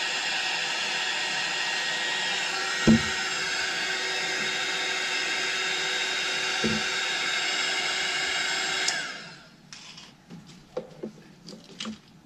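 Electric heat gun blowing steadily with a motor whine, heat-shrinking tubing on the scooter's wiring. Two dull knocks come partway through. About nine seconds in it is switched off and its fan winds down with a falling pitch, followed by a few light handling clicks.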